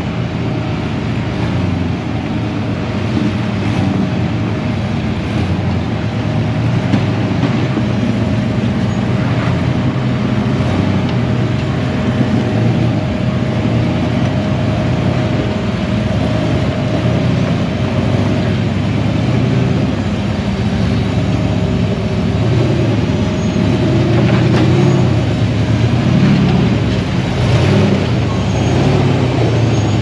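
Engine of an off-road rock-crawling vehicle running steadily under load at low speed, with a faint steady whine above it through the first half.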